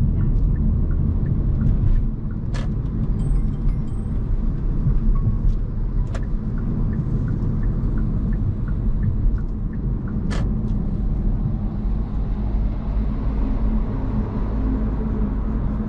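Hyundai Kona Hybrid driving, a steady low road and tyre rumble, with three sharp clicks spaced a few seconds apart.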